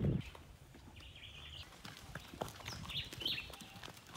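Several horses' hooves clip-clopping at a walk on a gravel dirt track, an irregular run of short clicks, with a few brief high chirps.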